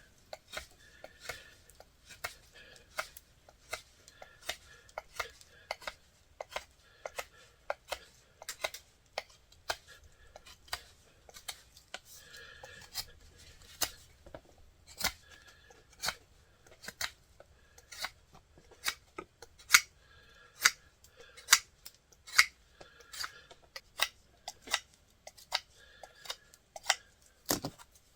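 Wood being whittled with a Swiss Army knife blade: a run of sharp, irregular snicks, about one or two a second, as shavings are cut from a wooden plug, with faint scraping between the cuts.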